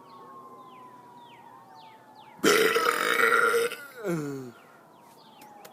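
A man's loud, deliberate burp about two and a half seconds in, lasting about a second and ending in a short tail that falls in pitch.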